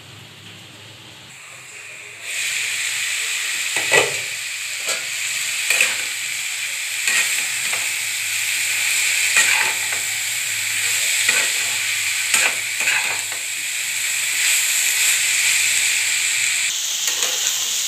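Shredded cabbage and potatoes sizzling in a kadai while a spatula stirs them, with scattered knocks and scrapes of the spatula against the pan. The sizzle starts suddenly about two seconds in, after a short quiet stretch.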